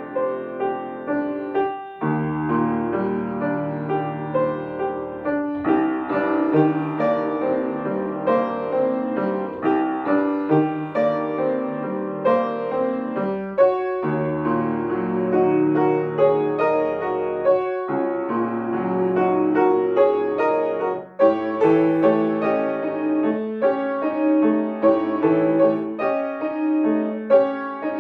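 Solo piano playing a slow piece in short phrases, each phrase followed by a brief break in the sound.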